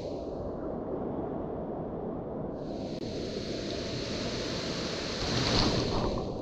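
Truck driving through puddles on a dirt road: a steady low rumble, with a rushing hiss of water spray from the tyres swelling up about two and a half seconds in and fading near the end.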